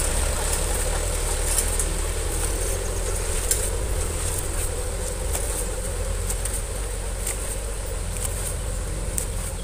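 Mitsubishi Canter light truck's diesel engine pulling away with a load of sand, its low rumble slowly fading as it drives off. A steady high insect buzz runs behind it.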